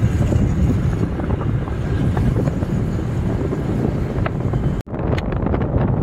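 Heavy wind buffeting the microphone of a rider on a moving petrol scooter, a dense low rumble of wind and road noise, broken by a short dropout a little under five seconds in.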